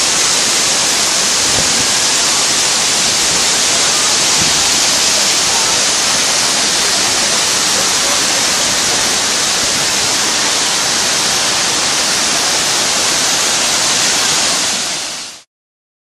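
Waterfall and rushing river water: a loud, steady rush of falling water, brightest in the upper range, fading out quickly near the end.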